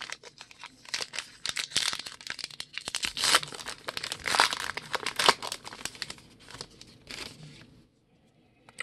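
A trading-card pack wrapper crinkling and tearing as it is ripped open by hand, a dense crackle that dies away near the end.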